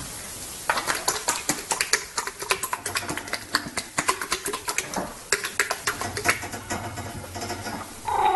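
Rapid, irregular clicking, several sharp clicks a second, stopping shortly before the end.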